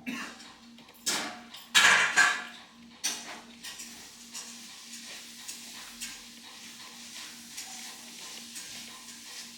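Household objects clattering and knocking, with a few loud strikes in the first three seconds, then a fainter steady hiss with a low hum.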